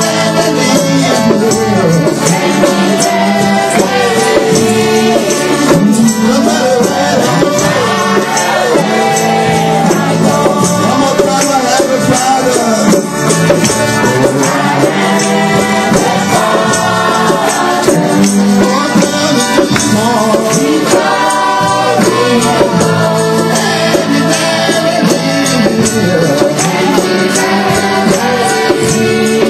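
Church worship music: voices singing over held instrumental chords, with shaken hand percussion keeping up a dense steady rhythm.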